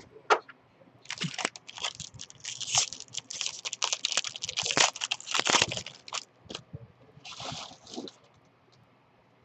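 Foil wrapper of a Topps baseball card pack crinkling as it is torn open by hand: a run of crackling rustles lasting about five seconds, then a shorter rustle a second or so later.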